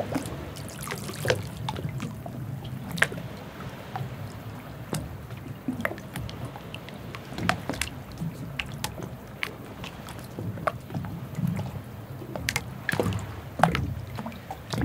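Harbour ambience: water lapping and dripping over a steady low rumble, with scattered irregular clicks and knocks.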